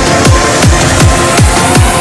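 Electronic dance music with a steady kick-drum beat of falling bass thumps and a synth line rising near the end.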